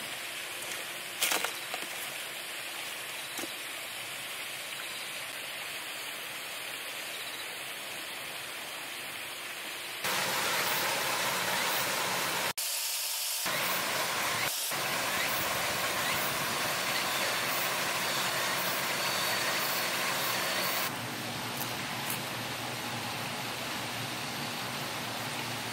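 Steady outdoor ambient hiss with no clear single source. It steps louder about ten seconds in and quieter again about twenty seconds in, with a short dropout around thirteen seconds and a sharp click about a second in.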